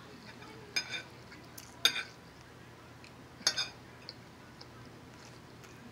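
A metal fork clinking against a ceramic dinner plate while food is picked up: three sharp, ringing clinks over about three seconds, with a couple of fainter ticks after.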